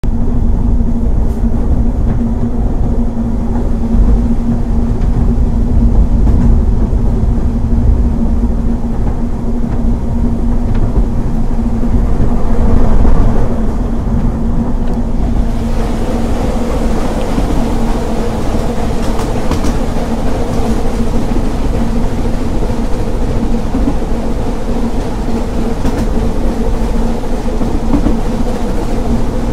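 Narrow-gauge steam train hauled by the double Fairlie locomotive Merddin Emrys, heard from the leading coach while running along the line: a loud, steady rumble of wheels on rail with a steady hum. About halfway through the sound brightens, with more hiss added on top.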